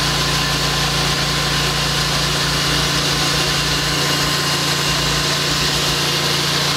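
Hud-Son H360 portable band sawmill running steadily, its engine at a constant speed as the sawhead carries the band blade along a log.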